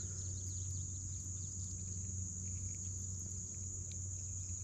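Steady high-pitched drone of insects singing, with a low steady hum underneath.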